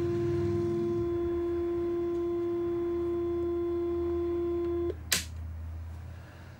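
A CMOS 4069 hex-inverter relaxation oscillator sounding a steady electronic tone through an 8-ohm speaker fed by a step-down transformer, with a low hum under it. The tone cuts off suddenly about five seconds in, a single click follows, and the hum dies away.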